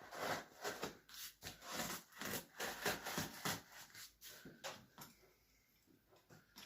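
Cardboard delivery box being handled and opened, a quick irregular run of short scraping and rubbing strokes that thin out and stop about five seconds in.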